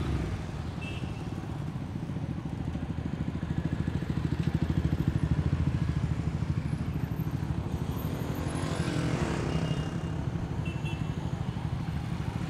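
A group of motorcycles, many of them Royal Enfield singles and twins, running at low speed as they roll past, with a steady fast exhaust throb. About eight seconds in, one engine revs up and drops back.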